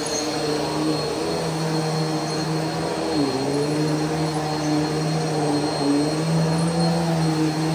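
Bissell PowerForce Helix Turbo bagless upright vacuum running while pushed back and forth over carpet: a steady motor hum whose pitch dips briefly about three seconds in. Its brush-roll belt is worn and needs replacing, so the brush stops turning here and there.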